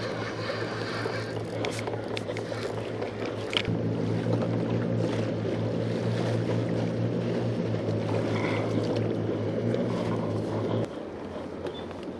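Steady low hum of a boat engine over choppy harbour water. The hum steps up in level about four seconds in and drops back suddenly near the end. A few light knocks come in the first few seconds.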